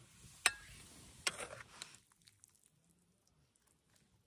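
Two sharp clinks of a utensil against a dish, about a second apart, the first ringing briefly, then near silence.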